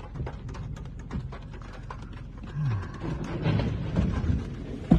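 Storm heard from inside a moving car: a steady low rumble of wind and rain, with many small ticks and taps of rain and debris on the body and glass, and a sharp knock right at the end.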